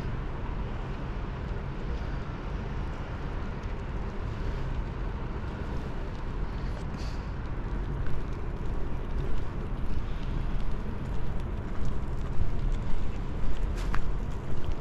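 Outdoor waterfront ambience: a steady low rumble of noise that grows louder and more uneven about halfway through.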